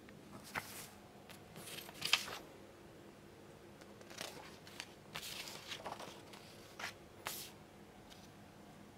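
A run of short rustling and scraping handling noises, about a dozen brief bursts with the loudest about two seconds in, over a faint steady low hum.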